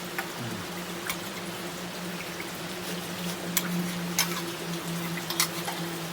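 Steady rain falling, with scattered sharp drops tapping close by, over a steady low hum.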